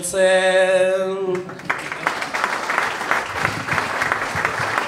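A man singing the last word of an improvised Basque verse on a held note, then, about a second and a half in, the audience applauding.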